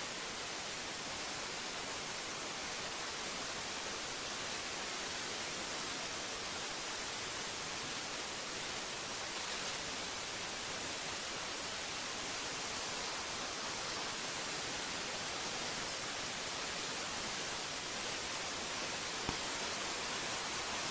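Steady, even hiss of static from a webcam's audio, with one faint click near the end. No bill-clattering is heard.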